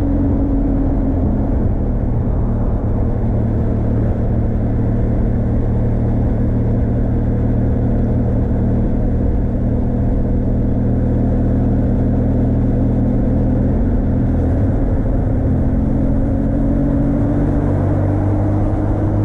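Benelli TRK 502 X motorcycle's parallel-twin engine running steadily at low revs in a high gear, with wind and road noise. Its pitch rises gently over the last few seconds.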